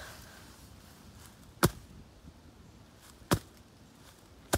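Three sharp knocks or cracks, about a second and a half apart, over faint outdoor background.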